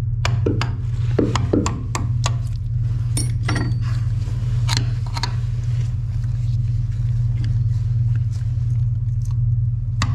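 A chisel chipping at old filler and fiberglass around a boat's stern tube. It makes a quick run of sharp taps over the first two seconds or so, a few more a little later, then only scattered taps. A steady low hum runs underneath throughout.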